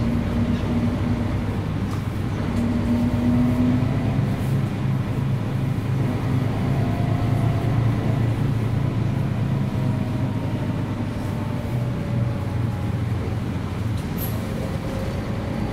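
Diesel engine of a 1994 Mercedes-Benz O 405 G articulated bus running: a steady low drone, with a faint whine that slowly rises and falls.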